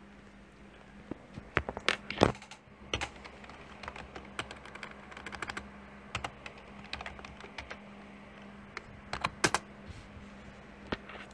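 Typing on a computer keyboard: runs of quick keystrokes, with a few louder clicks about two seconds in and again about nine seconds in, over a faint steady hum.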